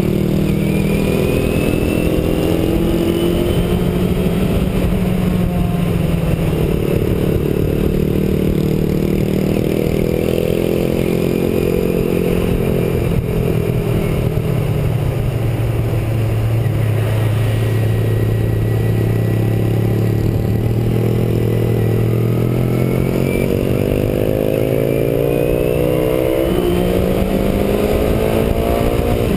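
A sport motorcycle's engine running under way, heard from the bike itself, its pitch rising and falling with the throttle. It settles low and steady about halfway through, then climbs again near the end as the bike accelerates.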